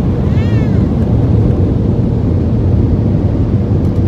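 Automatic car wash machinery running, heard from inside the car's cabin: a steady, loud low rumble.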